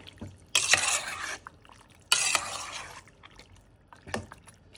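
Spoon stirring and scraping in a metal pot of soup: two bursts about a second long, with light clinks of metal between them.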